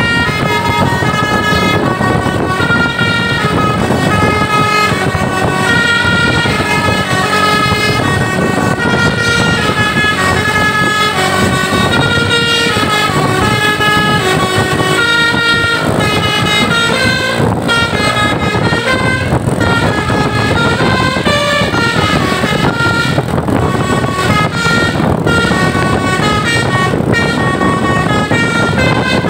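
A bus's telolet basuri multi-tone air horn playing a continuous tune of held notes that step between pitches every half second or so, over the bus's running engine and road noise.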